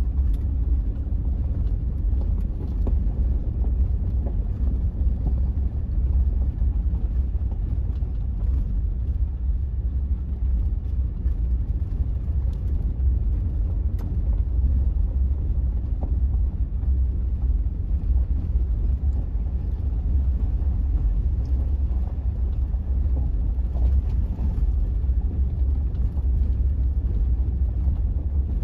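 Steady low rumble of a vehicle driving on a gravel road, heard from inside the cabin: engine and tyre noise.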